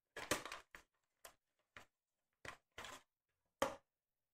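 Handling noises of a small cardboard box being opened and a plastic sprue of miniature parts taken out: a series of short rustles and scrapes, the longest about a fraction of a second, with silence between them.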